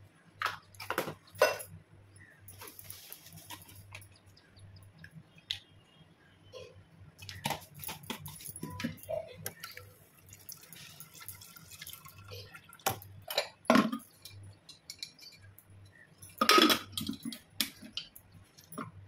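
An aluminium pressure cooker being handled: metal knocks and clinks, with stretches of dripping, splashing water as the soaked chickpeas in it are readied. The loudest clatter comes near the end as the lid is fitted.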